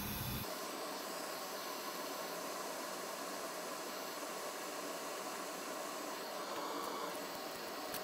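Steady, even background hiss with no distinct events.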